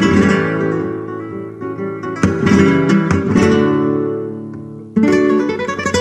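Flamenco-style acoustic guitar music. Strummed chords ring out and fade away, and a new strummed passage comes in loudly about five seconds in.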